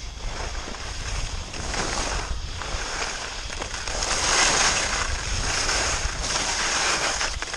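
Snow hissing and scraping under a rider sliding downhill, mixed with wind buffeting the action camera's microphone. The scraping swells loudest about four seconds in, as the rider turns and throws up a spray of snow.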